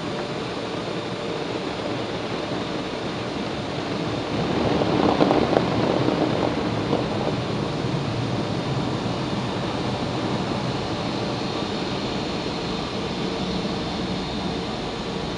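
Steady rush of a car-wash tunnel's blower dryers blowing air over the car, heard from inside the cabin. It swells about five seconds in and eases a little as the car rolls out.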